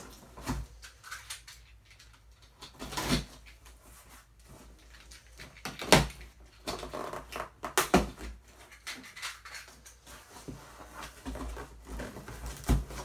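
A large cardboard shipping box being handled and opened by hand: scattered knocks, scrapes and rustles of cardboard, with sharper thumps about three, six and eight seconds in and again near the end.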